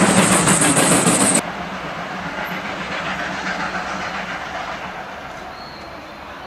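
FS class 740 steam locomotive passing close, with loud steam hissing and rapid chuffing that cuts off suddenly about a second and a half in. A quieter, slowly fading train rumble follows.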